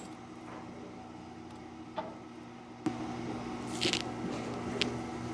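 Steady low hum, with a few faint clicks and a short rustle as the bandsaw band is handled and moved tooth to tooth on a dial-indicator set checker.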